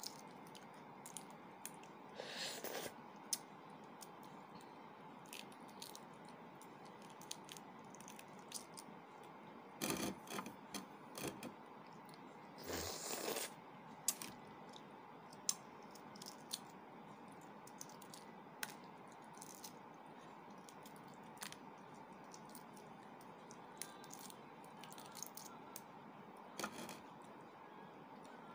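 Quiet scattered clicks and crackles of a boiled balut duck egg's shell being cracked and peeled by fingers, with eating and mouth sounds, over a steady room hum. A few louder short scraping bursts stand out about 2, 10 and 13 seconds in.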